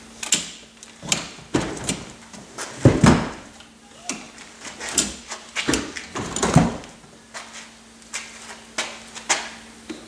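Honda Odyssey third-row fold-down seat being pulled over by its strap and dropped into the rear floor well. It makes a string of latch clicks, clunks and thumps, the heaviest about three seconds in and again at about six and a half seconds.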